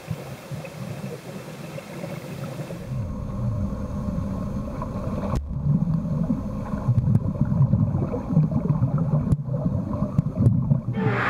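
Muffled underwater sound of pool water heard through a submerged waterproof camera: an uneven low churning rumble from water moving around swimmers that grows louder, with a couple of sharp clicks. At the very end a sudden splashy hiss as it breaks the surface.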